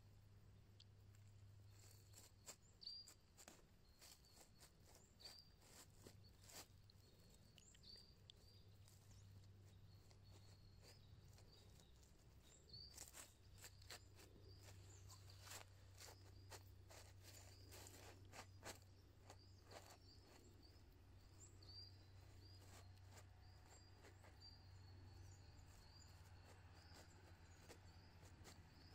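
Faint, scattered rustling and small snaps of dry leaves and spruce twigs as a cat pushes and roots into a brush pile, busiest in the middle. Faint short high chirps repeat throughout over a low steady hum.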